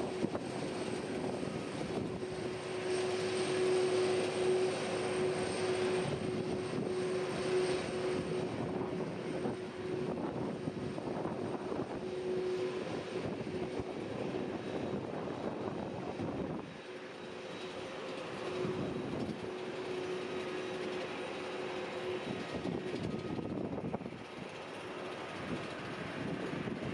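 Airliner engines running: a rushing noise with a steady hum through it, loudest a few seconds in and dropping off about sixteen seconds in.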